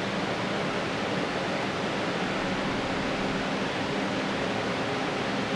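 Steady machine hiss with a faint low hum running evenly throughout.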